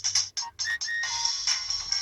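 Nokia 6230b mobile phone playing a ringtone: a synthesized melody of short, clipped notes that gives way to longer held notes about halfway through.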